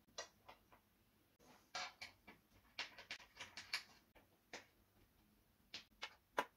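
Faint, irregular clicks and light rattles of screws and the metal tilt mechanism being handled and fastened onto an office chair's seat base by hand.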